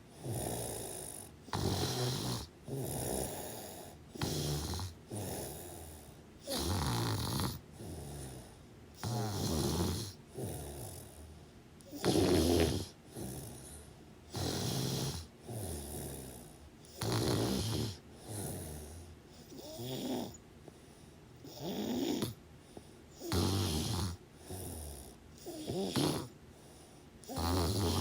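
Snoring: a rasping snore on the breaths, repeating in regular bursts about once a second or so, some bursts louder than others.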